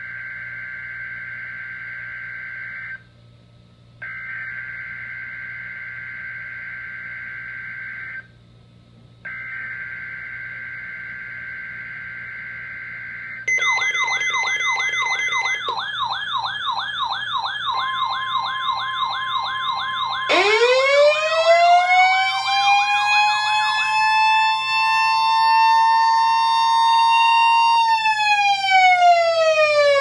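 NOAA Weather Radio SAME header for a Required Weekly Test: three shrill bursts of digital data tones, each about four seconds long with a short gap between. About 13 seconds in, several weather alert radios sound their alarms together with fast warbling sirens, and a steady long tone joins. About 20 seconds in, a siren tone winds up, holds, and winds down near the end.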